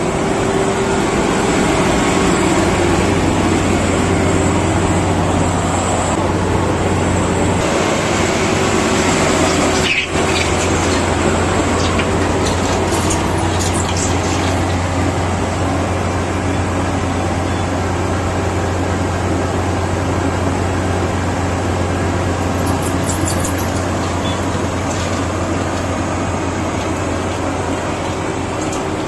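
Rice threshing machine running steadily, a constant low engine drone under a busy mechanical rush, with a brief dip about ten seconds in and a few light high clicks later.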